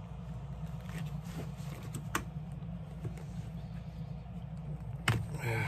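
Pliers gripping and working a metal rivet on a leather bag's handle tab, giving a few small metallic clicks and a sharper click near the end, over a steady low hum.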